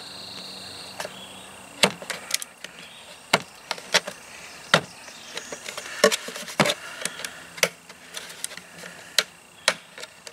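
Utility knife cutting and prying through the wall of a plastic canister, giving irregular sharp clicks and snaps as the blade bites and the plastic gives, about a dozen over the stretch.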